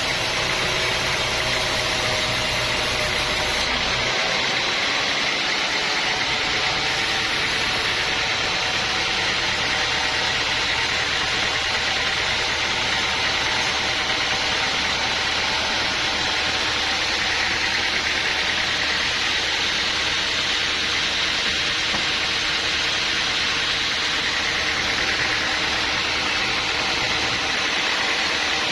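Sawmill machinery running at a steady pitch: a constant engine-like drone with a hiss over it.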